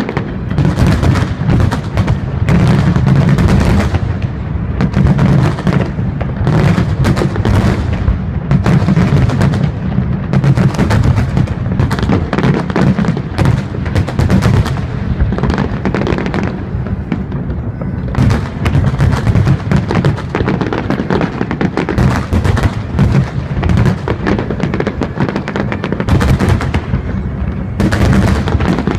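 Large fireworks display: many aerial shells bursting in quick, overlapping succession with crackle, a dense run of bangs that never lets up.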